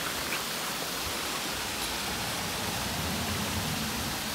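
Steady rushing of a small decorative waterfall spilling over rocks into a fountain pond.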